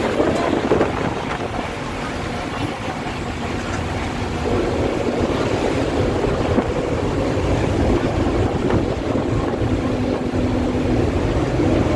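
Steady drone of a bus engine and road noise inside the cabin of a moving state bus at highway speed, growing a little louder about four seconds in.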